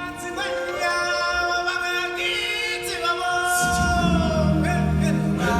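A choir of voices singing long held notes in harmony, like an opening chant; deep low bass notes join about three and a half seconds in.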